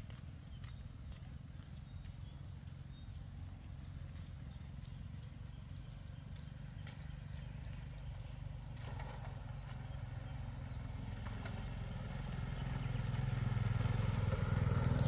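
Tractor engine running steadily, growing louder over the last few seconds.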